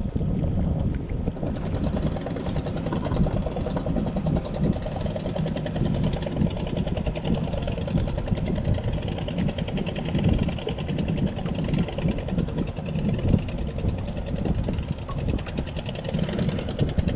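Boat engine idling steadily, a continuous even running sound.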